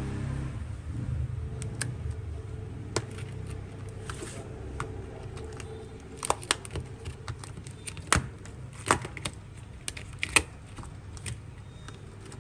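Scattered sharp clicks and taps of small hard objects being handled, irregular and more frequent in the second half, over a low hum that fades away in the first few seconds.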